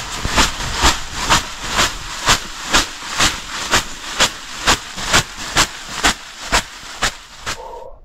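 A leafy bath broom (venik) being whisked and slapped in a steady rhythm, about two strokes a second, each a rustling leafy swish. The strokes stop abruptly near the end.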